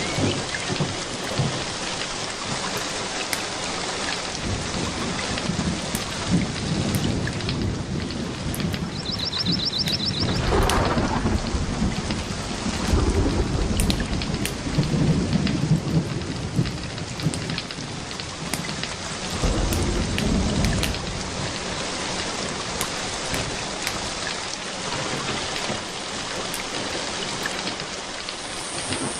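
Steady rain falling during a thunderstorm, with rolls of low thunder about a third of the way in, around the middle and about two-thirds of the way through.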